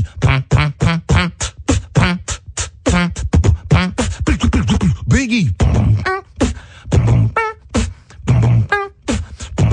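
A human beatboxer performs a rapid beat with the mouth: kick-drum thumps and snare and hi-hat clicks, mixed with swooping pitched vocal effects that bend up and down.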